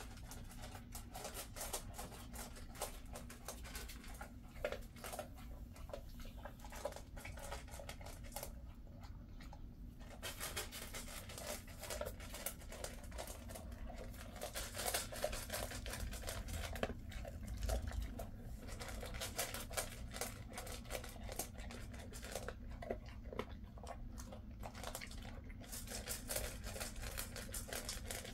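A Jindo dog eating dry food from a stainless steel bowl: steady, irregular crunching and chewing with a quick run of small clicks.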